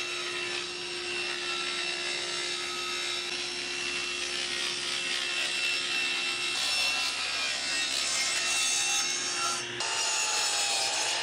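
Table saw ripping a sheet of half-inch plywood, the blade cutting steadily with a constant hum. Near the end a Festool Kapex sliding miter saw takes over, its blade winding down with a falling whine.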